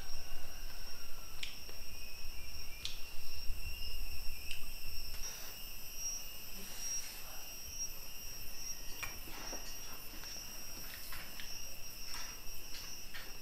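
Insects chirring steadily at a high pitch, with scattered short clicks of chopsticks and eating, and a low rumble during the first few seconds.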